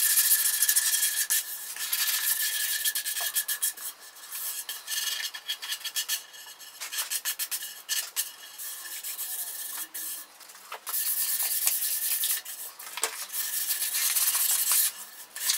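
Sandpaper rubbed by hand over a bare wooden Telecaster body: a dry, high hiss of quick back-and-forth strokes, in runs of a few seconds with short pauses between them.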